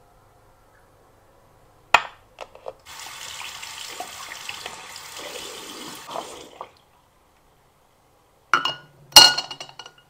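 Bathroom sink tap running for about four seconds, after a sharp click. Two hard knocks follow near the end, the second the loudest sound here.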